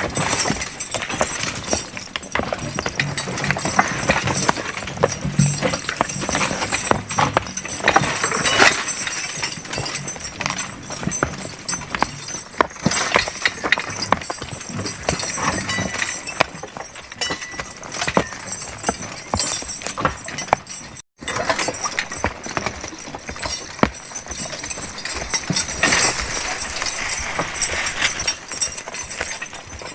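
Draft horses working in the woods: irregular hoof steps and knocks on the forest floor, with clicks and rattles.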